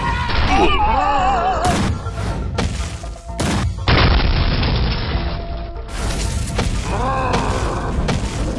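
Cartoon fight sound effects over background music: a run of heavy booms and crashes over a low rumble, with wavering sliding tones about a second in and again near seven seconds.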